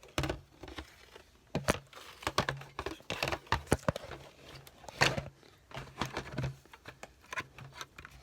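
Irregular clicks, taps and rustling from objects being handled close to the microphone; no vacuum motor running.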